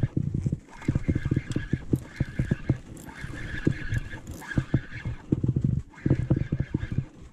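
Spinning reel being cranked in several bursts to wind in a hooked fish, its gears whirring over dense, irregular rattling knocks.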